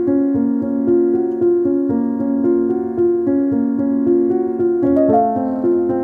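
Background piano music playing a repeating pattern of notes, which moves higher about five seconds in.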